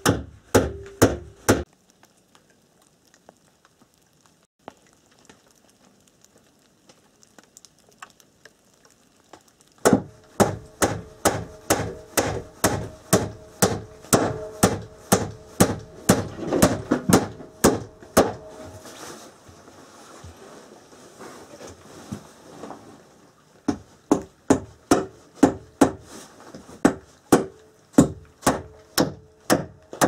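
Hammer driving nails into wooden boards: quick blows, about two to three a second, each with a short ringing note. A few blows at the start, a pause of several seconds, then two long runs of hammering with a short break between.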